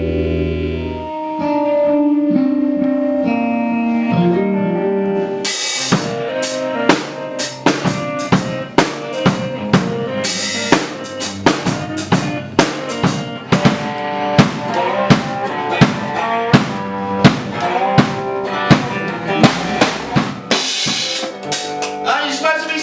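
Rock band music. For about the first five seconds held guitar and bass notes play alone. Then a drum kit comes in with a cymbal crash and plays a steady beat on snare and kick under the guitar and bass, with another crash near the end.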